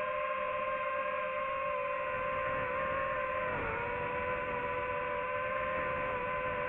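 DJI FPV drone's electric motors and propellers whining steadily in flight, with a short dip in pitch about halfway through as the throttle eases.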